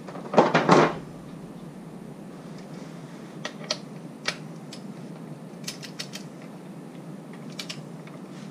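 Metal parts clicking and clinking as the front sprocket assembly of a 2001 Harley-Davidson Sportster's primary drive is handled: a quick run of loud clicks about half a second in, then scattered single clicks.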